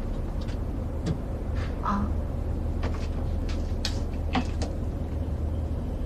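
Steady low drone of an airliner cabin, with a few faint clicks and knocks scattered through it.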